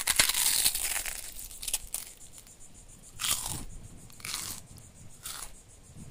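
Footsteps crunching over dead, dry grass and fallen dry leaves: a long crunch at the start, then a crunch about once a second.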